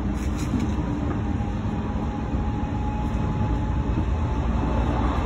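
Odakyu 3000-series electric commuter train running: a steady rumble of wheels and traction motors, with a faint high whine through the middle.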